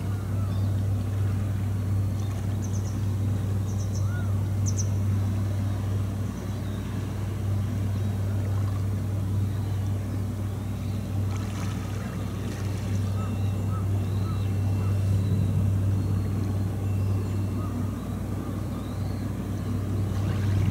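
Steady low engine drone that holds its pitch throughout, with faint short high chirps now and then.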